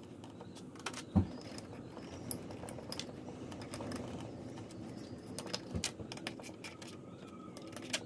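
Small metal parts clicking and clinking as the brush-end housing of a golf cart's electric motor is put back together by hand, with one sharp knock about a second in.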